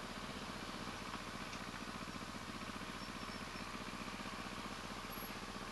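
Motorcycle engine running steadily at low revs, an even, fast low pulse.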